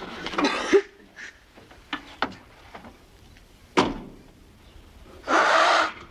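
A van door worked by hand: a short scrape ending in a latch click under a second in, then a single sharp knock about four seconds in. Near the end comes one long harsh call, most likely a crow cawing.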